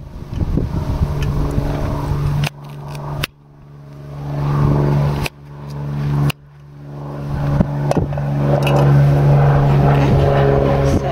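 A steady engine drone that swells louder, breaking off abruptly a few times, with light knife taps on a wooden chopping board.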